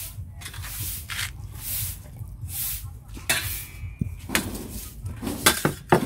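Kitchen handling noises from food preparation: repeated short rubbing swishes, then several sharp clicks and knocks in the second half.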